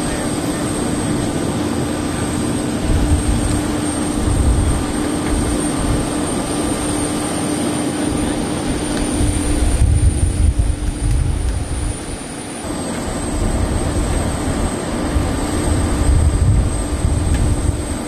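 Jet airliner running on the apron: a steady high whine and a lower hum over a constant rumble, with wind buffeting the microphone.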